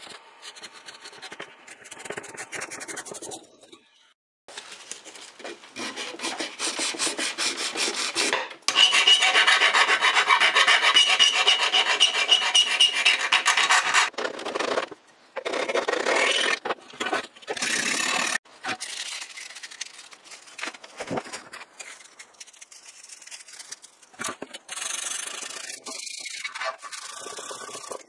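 Quick back-and-forth scraping of hand abrasives against the metal parts of an antique sandwich toaster. Moderate at first, then loudest for several seconds through the middle. After that it comes in shorter bouts with breaks and grows fainter near the end.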